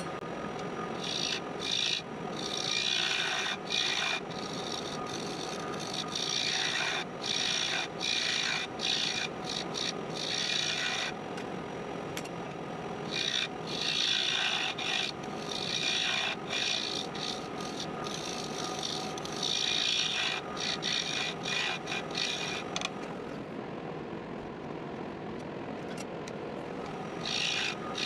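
Wood lathe running with a steady hum while a hand-held turning tool cuts the spinning wood spindle in repeated passes, a scraping cutting noise that stops and starts. Near the end there is a pause in the cutting with only the lathe running, then the cutting starts again.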